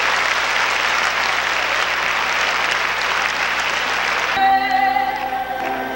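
Audience applauding in a large hall. About four seconds in, the applause cuts off abruptly and music takes over with held notes.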